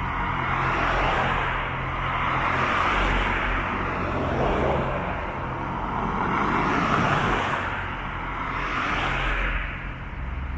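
Road traffic: several cars passing one after another, each a swell of tyre and engine noise that rises and fades.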